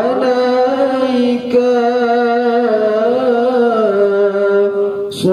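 A man's solo chanted Quranic recitation (tilawah) into a microphone over loudspeakers. It is one long held phrase that wavers slowly in pitch and steps down near the end, with a brief breath at either end.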